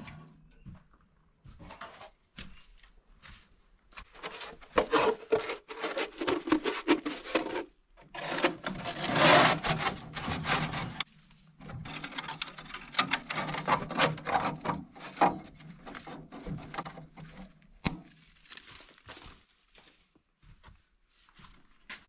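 Rusty metal pipe scraping and rattling against stone as it is pushed out through a hole in a dry-stone wall, in several spells of rubbing with one sharp knock near the end.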